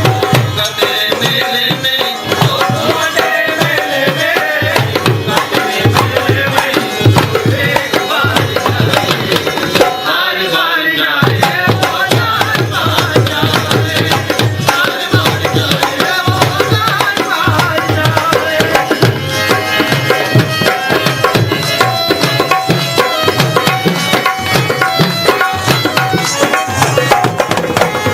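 Devotional bhajan music, driven by a fast, steady hand-drum rhythm with a held melody line over it.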